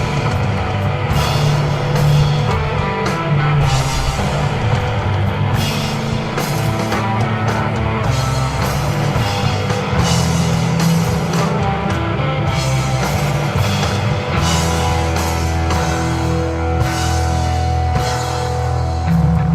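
Live instrumental desert rock jam from a guitar, bass and drum-kit trio: sustained bass notes and electric guitar under steady drumming with repeated cymbal strokes.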